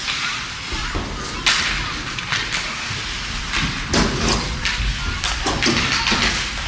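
Ice hockey play on the rink: several sharp knocks and thuds of sticks and puck over a steady hiss of skates on the ice.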